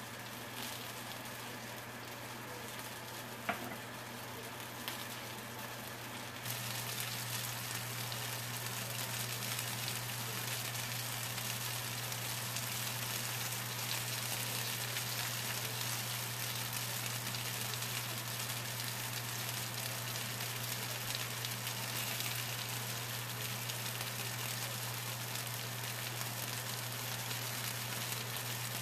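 Onion rings deep-frying in a skillet of hot oil: a steady sizzle that grows louder about six and a half seconds in. There are two faint clicks before the sizzle grows louder.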